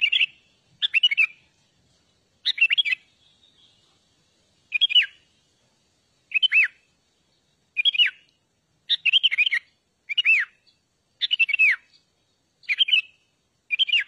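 A bulbul calling: short whistled phrases of slurred notes that fall in pitch, repeated about every second and a half.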